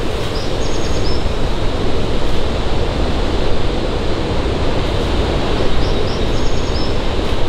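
Steady, loud rushing of falling water. A short high chirping call is heard twice, once about half a second in and once near six seconds.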